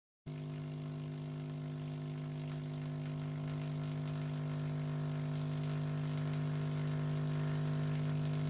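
A vacuum tube Tesla coil built around an 811A triode, running and sparking with a steady, evenly pitched buzz. The buzz cuts in abruptly and grows slightly louder over the seconds.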